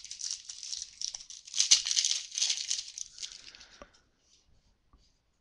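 Trading cards and their packaging handled close to the microphone: a dense crinkling rustle with small clicks, which stops about three and a half seconds in.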